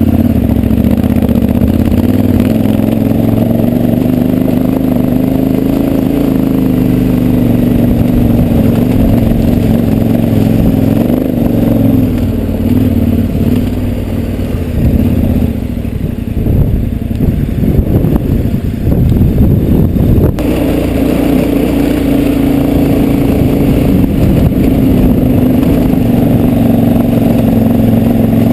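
KTM 1190 Adventure R's V-twin engine running under steady throttle as the bike climbs loose gravel, with wind rumble on the helmet microphone. About two-thirds of the way through, the even engine note breaks up into a rough, choppy stretch for a few seconds, then settles again.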